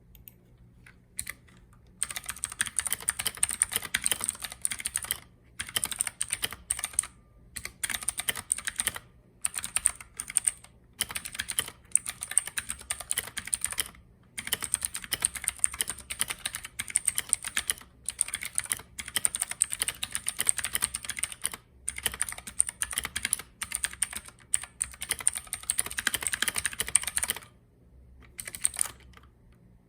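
Typing on a Redragon K552 mechanical keyboard with Cherry MX Blue switches: fast runs of sharp, clacky keystrokes broken by short pauses, beginning about two seconds in and dying away to a few stray clicks near the end.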